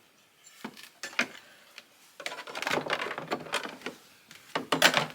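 Irregular clicks, knocks and rattling from a chainsaw being handled, with no motor running; the loudest clicks come near the end.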